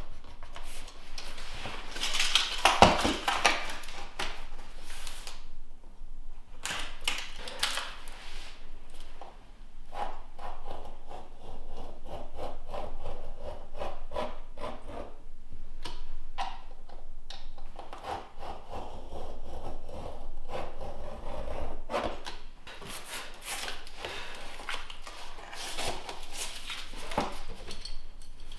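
Faux-wood floor planks being handled and fitted: rubbing and scraping with scattered knocks, loudest about three seconds in.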